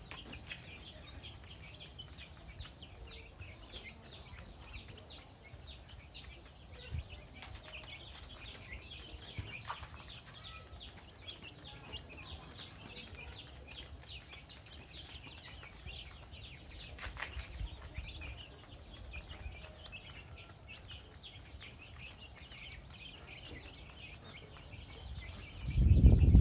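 A flock of young chickens peeping constantly, many short high calls overlapping. Near the end a sudden loud low rumble starts.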